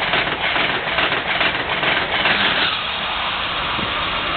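Amtrak Acela high-speed electric train passing close by at speed: a loud rush of air and rail noise with a rapid, regular clatter as the cars and their wheelsets go by, easing to a fading rush once the tail passes, about two and a half seconds in.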